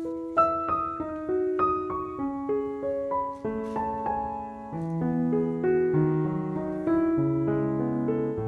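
Background piano music: a gentle melody of single notes over sustained lower chords.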